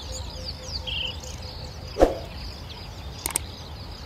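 Small birds chirping in many quick falling notes over a low steady background noise, with one sharp crack about halfway through and a couple of quick clicks near the end.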